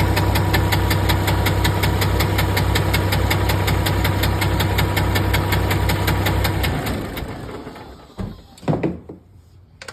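PACCAR MX13 inline-six diesel idling with a loud, sharp, regular knock several times a second. The knock comes from valvetrain damage: the camshaft was suspected, and teardown found a broken rocker and a destroyed camshaft. The engine shuts off about seven seconds in and runs down, followed by a couple of clunks near the end.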